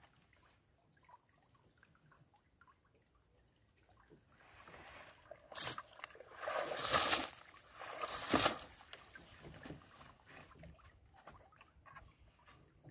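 Water sloshing and splashing around a small outrigger fishing boat, with a few loud splashes between about four and nine seconds in and faint trickling around them.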